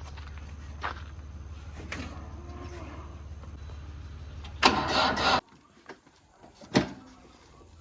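Heavy diesel engine of a backhoe or tractor running steadily with a low drone. Late on there is a loud burst of noise for about half a second, then the engine sound cuts off abruptly. A single sharp knock follows near the end.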